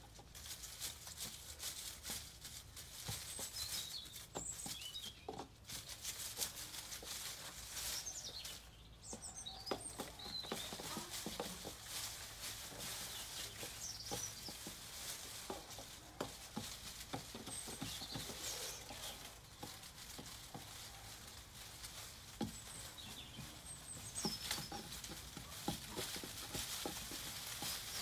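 Irregular knocks, thuds and scrapes of a wooden stick jabbing soil into a large pot around a tree's root ball, with small birds chirping now and then.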